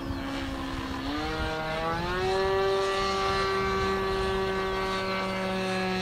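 Irvine 53 two-stroke glow engine of a radio-controlled Pilatus PC-9 model plane in flight, its pitch rising about a second in and then holding steady.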